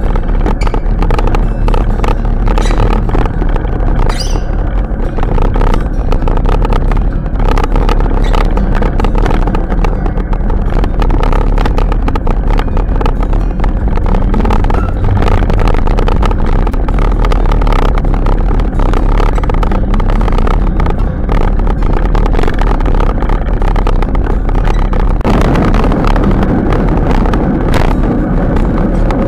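Steady wind rumble and buffeting on a bicycle-mounted camera's microphone while riding, mixed with tyre and rattle noise. About 25 seconds in it changes to a heavier, lower rumble as the ride moves onto tarmac road.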